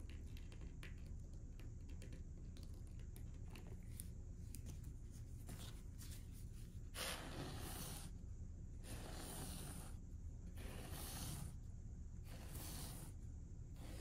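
Wide paintbrush spreading glossy varnish across a canvas. Faint scattered ticks at first, then from about halfway a run of brush strokes, one every two seconds or so, over a low steady hum.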